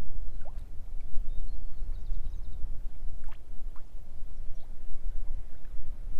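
Wind buffeting the microphone with an uneven low rumble, over small waves lapping against a floating pontoon. A few faint, short high chirps come through about half a second in and again around three and a half seconds.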